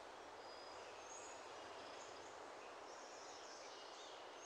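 Faint outdoor ambience: a steady low hiss with a few short, high bird chirps here and there.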